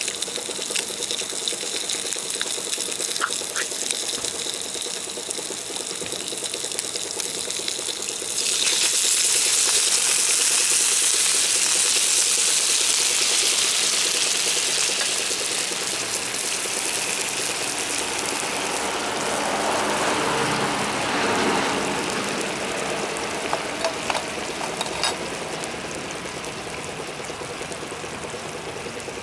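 Pork frying with a steady sizzle in a cast-iron skillet. About eight seconds in, liquid is poured into the hot pan and it bursts into a loud hiss. The hiss dies down over about ten seconds into a bubbling simmer, with a few sharp pops near the end.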